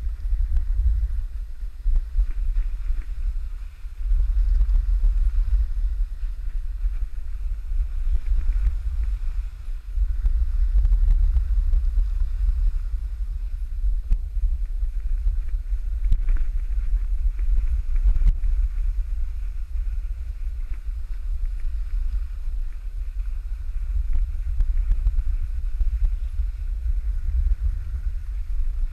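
Wind buffeting an action camera's microphone while sliding downhill on snow: a loud low rumble that rises and falls with the gusts, over a faint hiss of sliding on the snow.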